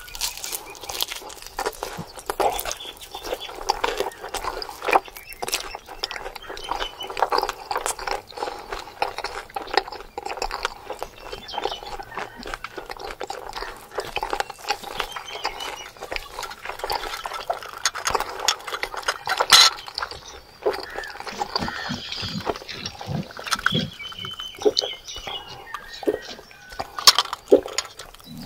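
Close-up eating sounds: rice and meat curry mixed by hand on a banana leaf and chewed, a steady run of wet clicks and smacks.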